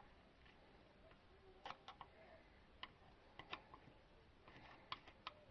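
A few faint, sharp clicks and ticks, scattered irregularly, of the headlight switch and its plastic trim panel being handled during reassembly, over near silence.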